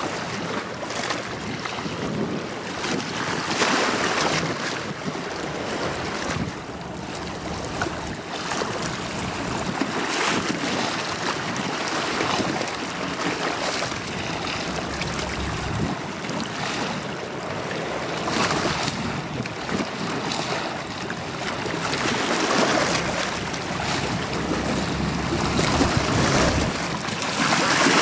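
High-speed passenger ferry running past at speed: a steady rush of water from its bow wave and wake, with wind gusting on the microphone in swells every second or two.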